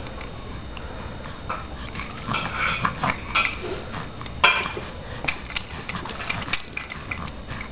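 A baby blowing raspberries, sputtering his lips in short bursts, with the loudest sputter about halfway through.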